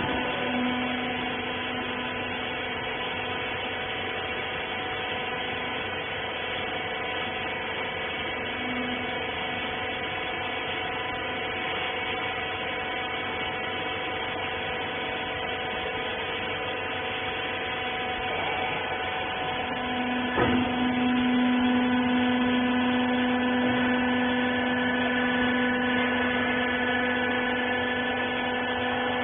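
Rag baler's hydraulic power unit running with a steady whine. About 20 seconds in there is a click, and the whine grows louder and stronger, as if the pump has come under load.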